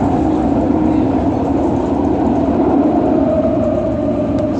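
A London tram running, heard from inside the car: a steady rumble of wheels on rail with a motor whine that drops slightly in pitch near the end.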